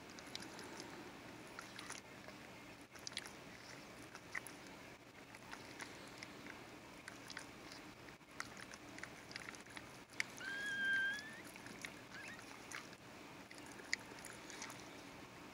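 A mother dog working over her newborn puppies with wet clicking mouth sounds. About ten seconds in, a newborn puppy gives one high, wavering squeal lasting about a second, followed by a shorter squeak.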